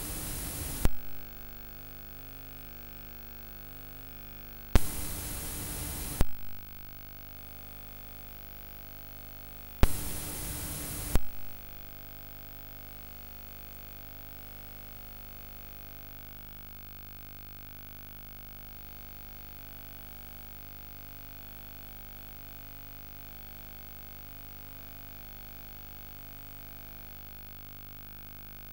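Tape noise from a Betamax copy with no programme sound: bursts of loud static hiss that cut in and out with sharp clicks, about a second in, around five to six seconds and around ten to eleven seconds. After that only a steady faint hiss with a low hum remains.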